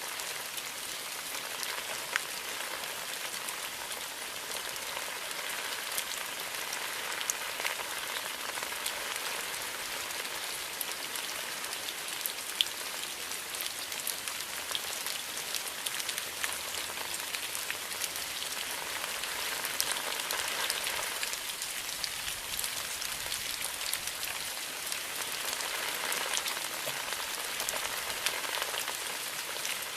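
Steady rain falling, a dense patter of drops with occasional sharper, closer drips standing out.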